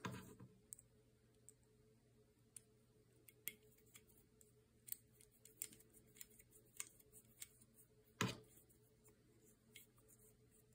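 Faint small metallic clicks and ticks of a hand key turning optic mounting screws into a red-dot optic on a pistol slide. There is a bump at the start and one louder knock about eight seconds in.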